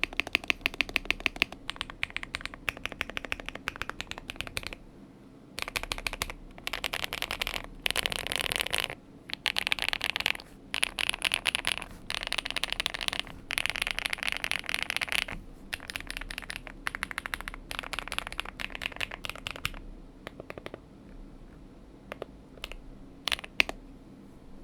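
Typing on an Epomaker P87 mechanical keyboard with Zebra linear switches, double-shot PBT keycaps and a tape mod. It comes in fast bursts of keystrokes separated by short pauses, and thins to a few scattered keystrokes in the last few seconds.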